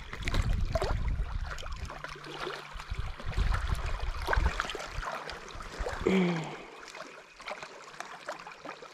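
Rustling and clicking handling noise as a small bass is unhooked by hand, over a low rumble that stops about five seconds in. A short voiced hum about six seconds in.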